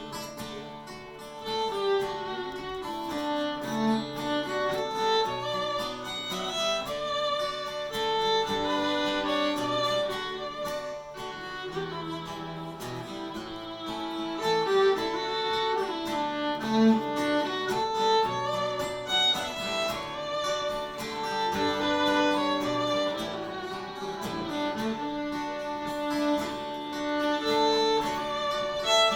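Fiddle playing an instrumental break of a folk ballad over acoustic guitar accompaniment.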